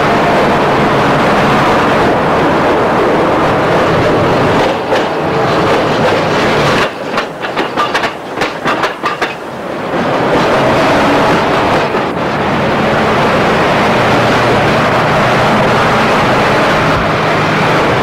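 Tram passing close by on its tracks, running steadily, with a quick run of wheel clicks over the rail joints about seven to nine seconds in.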